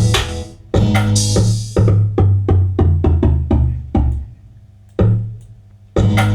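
Trap-amapiano (trapiano) beat playing: drum-machine drums over a deep bass and chords. It cuts out briefly three times and starts again.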